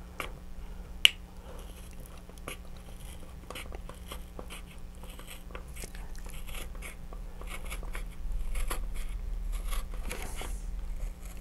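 Hobby knife blade cutting slowly into the thin plastic fin fairing of an Estes Saturn V model rocket: a run of small ticks and crunching scrapes, with one sharper click about a second in.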